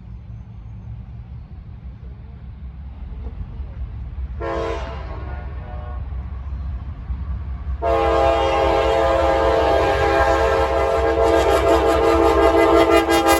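Approaching diesel freight locomotive with its engine rumble building, sounding its multi-note air horn: a short blast about four seconds in, then a long sustained blast from about eight seconds on. This is a horn salute to the trackside watcher.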